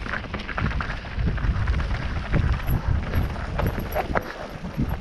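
Mountain bike riding over rough trail: wind buffeting the camera microphone as a dense low rumble, with irregular rattles, clicks and knocks from the tyres, chain and frame over stones.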